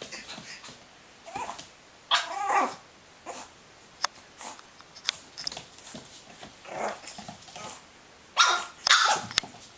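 A puppy barking and growling in short, irregular yaps, with the loudest barks about two seconds in and near the end.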